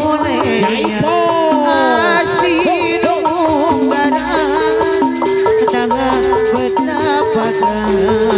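Sundanese jaipongan music played by a gamelan ensemble. Metallophones repeat a quick two-note pattern over kendang drumming, and in the first half a wavering melody slides up and down in pitch.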